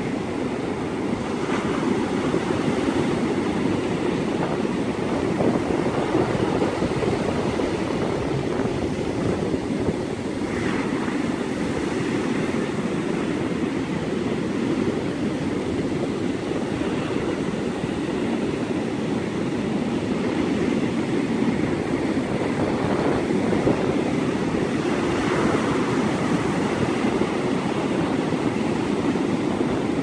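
Ocean surf breaking and washing up a sandy beach: a steady, unbroken rush of water noise, mixed with wind.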